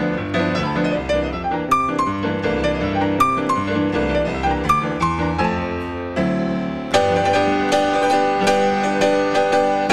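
Instrumental background music led by piano, playing a quick run of notes; it grows louder and fuller about seven seconds in.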